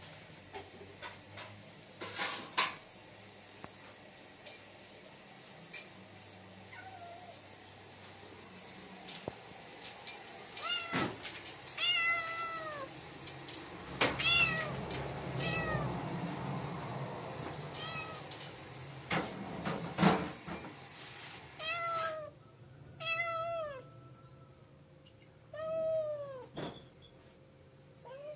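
Black-and-white kitten meowing over and over: about nine short, high meows that rise and fall in pitch, starting about ten seconds in and coming closer together near the end. A few sharp knocks come in between, the loudest about two and a half and twenty seconds in.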